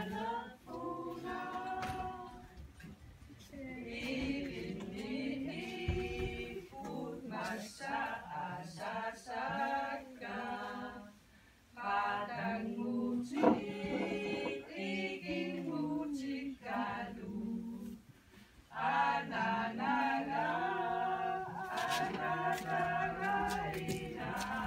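A small group of voices singing unaccompanied, phrase after phrase, with short breaks about 11 and 18 seconds in. A single sharp knock sounds about 13 seconds in.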